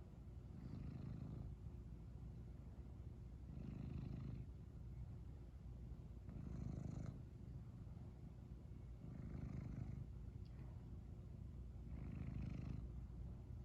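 Domestic cat purring, the purr swelling with each breath about every three seconds.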